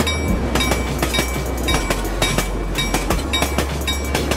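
Miniature amusement-park train running along its track: wheels clicking and clacking over the rails a few times a second over a steady low rumble.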